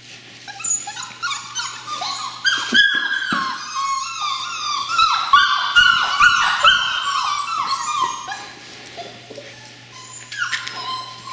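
A litter of seven-week-old border collie puppies whining and yelping, many short high calls overlapping one another, thickest in the middle and thinning out near the end. The whining shows their unease at being in an unfamiliar room. A steady low hum runs underneath.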